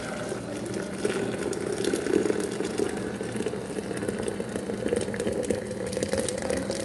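Boiled water poured from a kettle into a stainless steel pot: a steady splashing stream whose pitch rises slowly as the pot fills.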